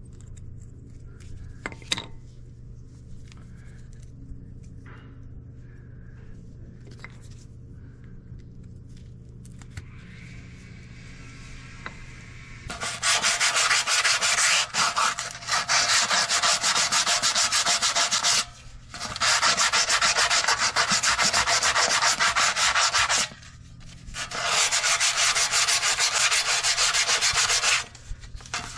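Abrasive scrubbing or sanding, starting about 13 seconds in and going in long runs of several seconds with short pauses. It is plausibly rust being cleaned off brake parts. Before it there is only a faint low hum with a few small knocks.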